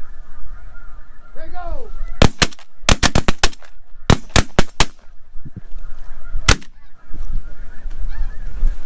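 Snow geese honking overhead, then a volley of shotgun fire from several Benelli Super Black Eagle semi-automatic shotguns: about a dozen shots in quick bursts between two and five seconds in, and one last shot a little later. Wind rumbles on the microphone.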